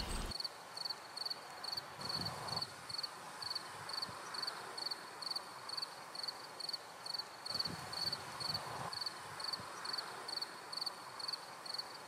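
Cricket chirping at an even pace, about three short high chirps a second, faint against a soft outdoor background hiss.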